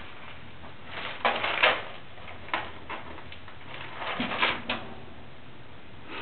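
A rabbit moving about in its cage's hay bedding and scrambling out over a towel, giving two spells of rustling and scraping with a couple of light knocks between them.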